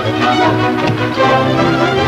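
Orchestral film-score music with strings and brass.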